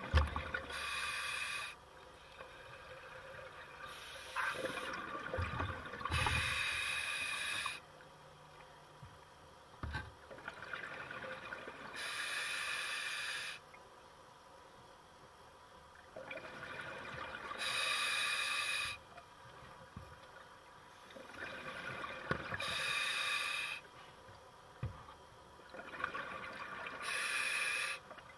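Scuba diver breathing through a regulator underwater: a hiss of about one to two seconds comes roughly every four to five seconds, with quieter bubbling between.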